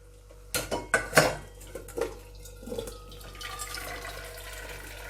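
A few metal clanks of cooking vessels in the first two seconds, then water pouring steadily as the cooking water is strained off pressure-cooked vegetables.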